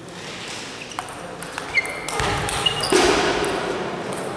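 Table tennis ball struck and bouncing a few times, sharp clicks with a brief ringing ping, then a louder stretch of mixed noise about halfway through.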